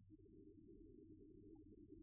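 Near silence: only a faint, steady low rumble with a thin, steady high-pitched tone over it.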